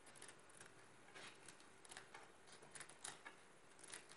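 Faint, irregular snips of kitchen scissors cutting rolled betel (paan) leaves into strips, a dozen or so short clicks.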